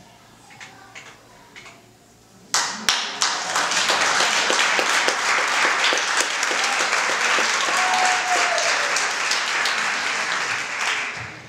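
Theatre audience applauding: it starts suddenly about two and a half seconds in with a few sharp claps, swells into dense clapping, and fades near the end.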